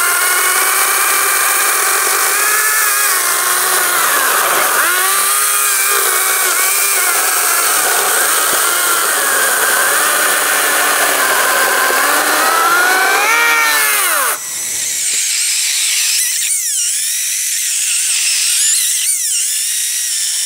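ES Industries LCHS1454 54V cordless chainsaw, 14-inch bar, cutting through an 18 cm log, its motor whine dipping in pitch as the chain bites under load and recovering between bites. About 14 seconds in the sound changes abruptly to a thinner, higher whine that still dips repeatedly.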